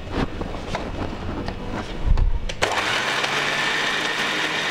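Clicks and knocks as a hand presses the lid onto a mixer grinder jar. About two and a half seconds in, the mixer grinder's motor switches on and runs steadily with a hum, grinding sautéed mint and onions into chutney paste.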